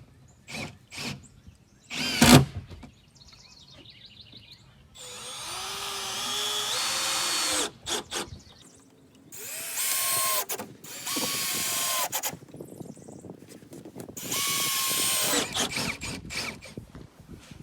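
A power drill driving screws into wood framing lumber, in three runs of a few seconds each, its motor pitch rising and then dropping as each screw bites and seats. A few sharp knocks of wood come first, the loudest about two seconds in.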